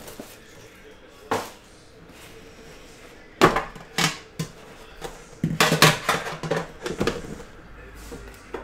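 Metal collector's tin being opened by hand: the lid clanks and scrapes in a few separate knocks, then a quick cluster of taps and clatter as the shrink-wrapped box inside is handled and lifted out.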